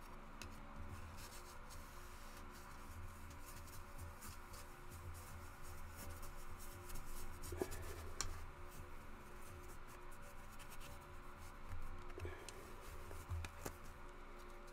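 Paper towel rubbing and buffing a metallic-painted plastic model part, faint rubbing with a few light taps as the part is handled. The coat of metal paint is being buffed off while still wet to bring up a shine.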